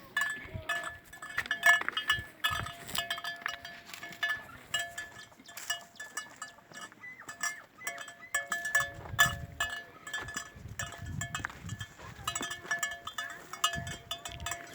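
Livestock sounds from Gir cattle in a dairy shed: many light clicks and clinks throughout, with a few low calls between about nine and twelve seconds in.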